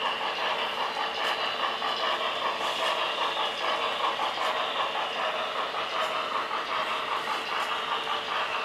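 Model train running along the layout track: a steady, fast clatter of its wheels rolling over the rails.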